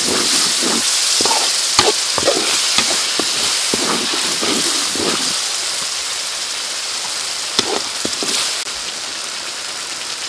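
Chili sauce sizzling in a steel wok as a metal ladle stirs it, with scattered clicks and scrapes of the ladle against the pan, mostly in the first few seconds and again a couple of times near the end.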